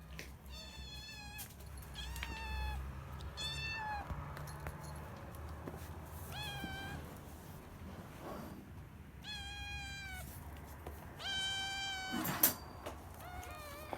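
Young kittens meowing loudly and insistently, about seven high-pitched calls of under a second each: kittens shut in a cage demanding to be let out. A single sharp click near the end is the loudest moment.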